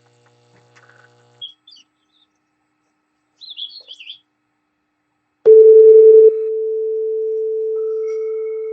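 A steady electronic test tone of middle pitch, played through old PC speakers, starts suddenly and loudly about five and a half seconds in and holds, a little softer after the first second; a fainter higher tone joins near the end. Before it, a few faint short warbling chirps.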